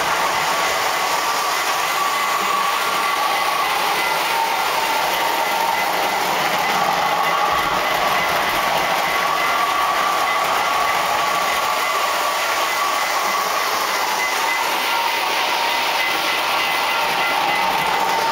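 Lionel model trains running on the layout track: a steady whir of wheels and motors, with a thin whine that wavers slightly in pitch.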